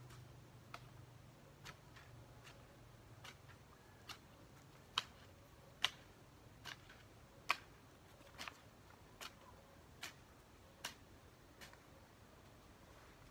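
Hand hoe chopping into damp garden soil: short, sharp strikes at an even pace, a little under one a second, some louder than others, the loudest near the middle.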